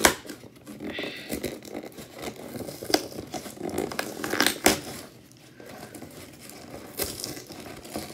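Packing tape being pulled and torn off a cardboard shipping box, with irregular rustling and scraping of the cardboard and a few sharp rips.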